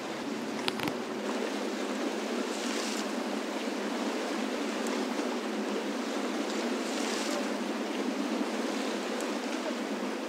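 Steady wash of lake water against a rocky shore, with wind, swelling briefly twice.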